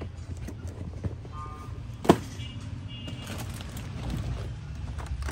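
Short electronic tones from a battery-powered toy, over a steady low rumble, with one sharp knock about two seconds in.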